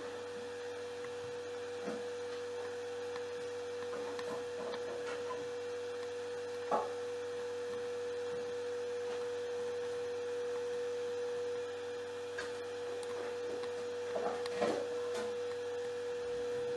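A steady electrical hum on one pitch from the rework bench equipment, with a few light clicks and taps of tools on the circuit board.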